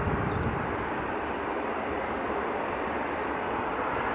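Twin-engine jet airliner's engines running as it turns onto the runway: a steady, even rushing noise, with a few low thumps near the start.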